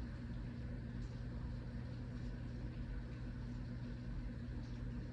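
Steady rain falling, with a constant low hum underneath.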